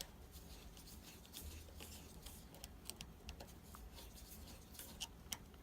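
Faint, scattered small clicks and rubbing of metal as the wires are taken off the screw terminals of an electric water heater's lower heating element.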